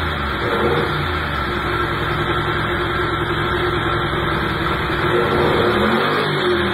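Modified 72-cubic-inch Kohler Command V-twin engine running on an engine dyno at a steady speed, its revs dipping about six seconds in and then starting to climb near the end.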